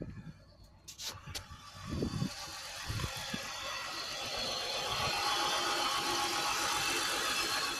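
Car engine running, with a few low thumps and two sharp clicks in the first three seconds. The engine noise then grows from about two seconds in and holds steady and louder. The owner takes its sound for a misfire from a dead spark plug.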